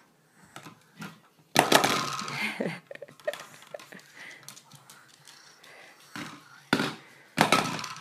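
Hollow plastic toy bowling pins knocked over and clattering on a hardwood floor, the small plastic balls inside them rattling. A loud clatter comes about a second and a half in, with two more knocks near the end.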